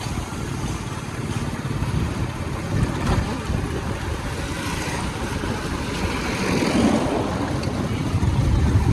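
Road noise from riding in a motor vehicle: wind rushing over the microphone over a low engine rumble.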